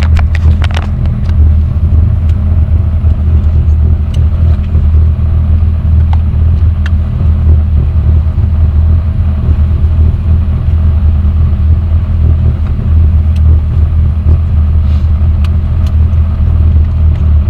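BMW E30 320i's straight-six engine idling steadily, heard from inside the cabin as a low, even rumble, with a few clicks in the first second.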